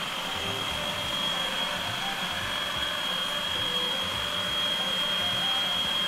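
Kenwood food processor motor running steadily with a constant high whine, pureeing onion, garlic and ginger into a paste.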